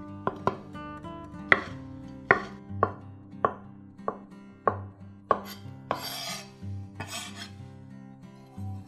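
Kitchen knife dicing a sausage on a wooden cutting board: about nine sharp knocks of the blade hitting the board at uneven intervals, then two longer scraping sounds past the middle.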